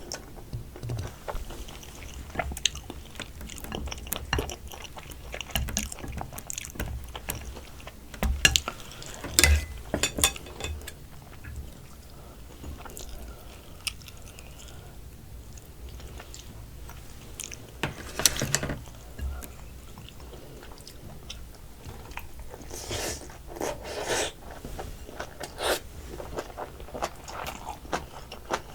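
Close-miked eating of soy sauce marinated raw crab: steady chewing and biting with many small crunches. Louder crunching comes in clusters at about 9 seconds, about 18 seconds and again a few seconds before the end.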